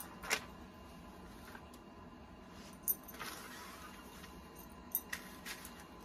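Faint rustling of brown butcher paper being handled, with a few light taps and clicks.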